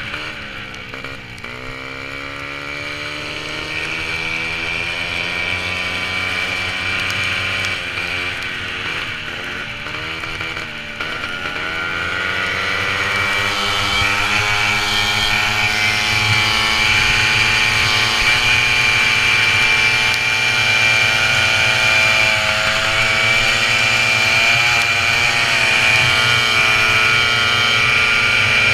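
Small two-stroke engine of a racing VéloSoleX moped, heard from on board: its pitch drops and picks up again several times in the first dozen seconds, then climbs and holds at high revs. A steady high-pitched whine runs above it.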